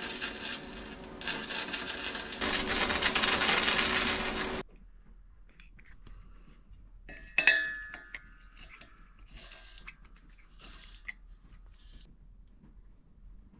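Electric arc welding crackling and sizzling, in two runs with a short break and louder in the second, cutting off about four and a half seconds in. After that come faint handling of small metal pipe fittings and a single sharp metallic clink that rings briefly.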